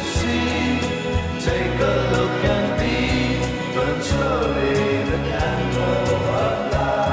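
Background music with singing voices over a steady bass line.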